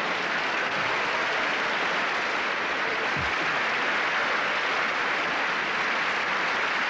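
Large theatre audience applauding, a steady, even clatter of many hands clapping in response to a joke's punchline.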